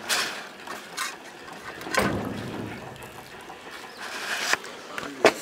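Dog eating from metal bowls on the ground: a few scattered clinks and knocks, roughly one a second.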